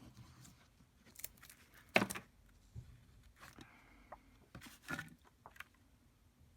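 Paper-craft materials being handled on a work table: scattered light taps, clicks and paper rustles, the loudest tap about two seconds in and another near five seconds.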